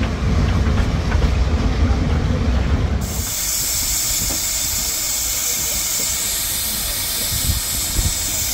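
Narrow-gauge forestry steam train: a low rumble with scattered clicks, then about three seconds in a steady loud hiss of escaping steam sets in suddenly and keeps on.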